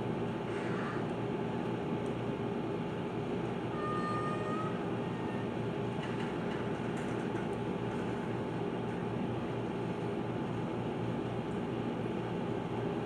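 Steady low hum and hiss, with a brief faint high tone about four seconds in and a few faint clicks a little later.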